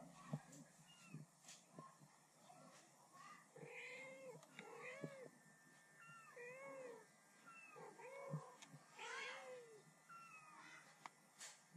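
Kittens and their mother cat meowing back and forth: a string of about ten short, quiet meows, each rising and then falling in pitch.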